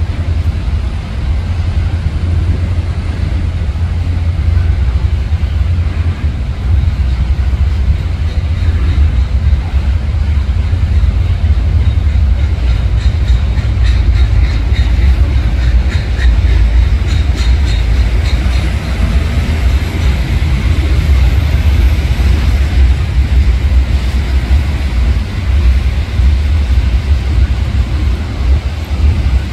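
Freight train's hopper cars rolling past: a steady low rumble of steel wheels on rail, with a stretch of rapid clicking around the middle.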